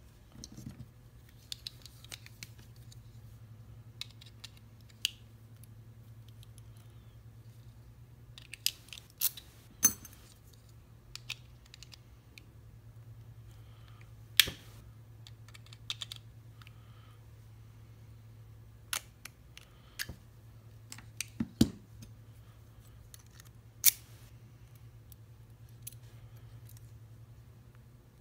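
Scattered sharp clicks and taps of a small metal padlock and lock-gutting tools being handled, about a dozen sudden ones spread irregularly, over a steady low hum.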